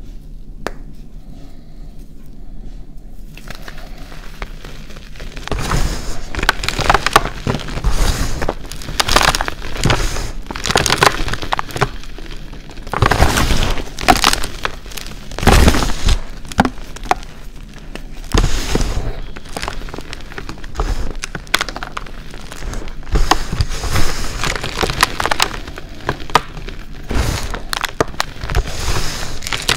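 Hands crushing reformed gym chalk mixed with glitter, the chalk crunching and crackling as it crumbles and the powder falls. After a quieter start with one small click, dense crisp crunching sets in about five seconds in and runs on in heavier and lighter spells.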